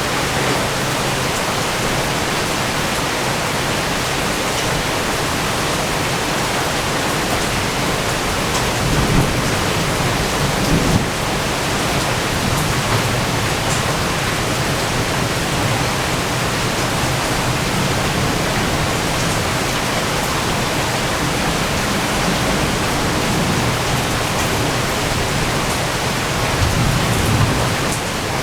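Heavy thunderstorm rain falling steadily, with two low rolls of thunder: one about nine to eleven seconds in and another near the end.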